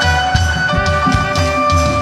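Instrumental worship band music: sustained chords over a steady drum beat, about two and a half beats a second.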